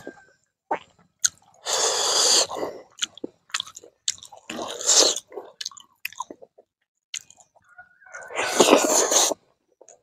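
A person chewing and eating a mouthful of smoked pork and rice, with three louder bursts of mouth noise about a second long, near the start, midway and near the end, among short clicks.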